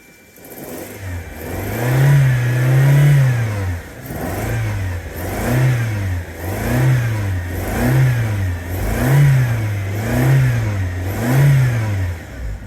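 Toyota Tercel four-cylinder engine revved again and again: one longer rev, then about seven quick blips, each rising and falling, roughly one every second and a quarter. This is a test run after fitting new spark plugs to cure a misfire.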